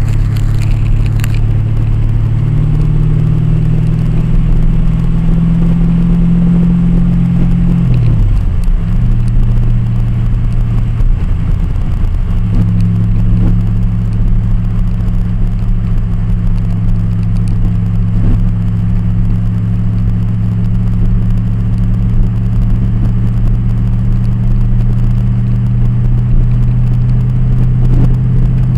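Nissan Z sports car engine running under load, with a low rumble of wind on the microphone. Its drone climbs in pitch over the first few seconds, drops and wavers about eight seconds in, then picks up again and holds steady from about twelve seconds on.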